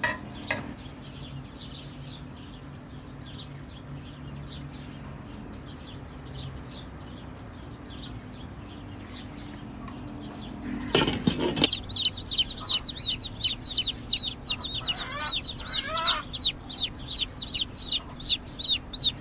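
Domestic chicks peeping loudly and rapidly, about four high, downward-sliding peeps a second, from about twelve seconds in. Before that, fainter peeps over a low steady hum, and a short splash of water poured into a pan about eleven seconds in.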